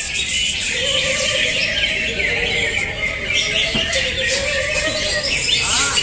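Many caged greater green leafbirds (cucak hijau) singing at once in contest: a dense, continuous mix of quick overlapping chirps, trills and warbled phrases.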